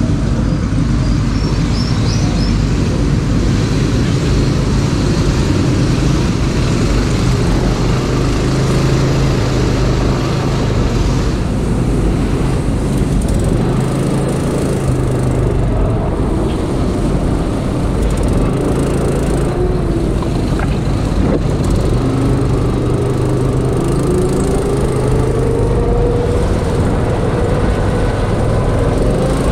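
Go-kart's small engine running at low speed as the kart rolls out, then revving higher with a steadily rising pitch over the last several seconds as the kart picks up speed.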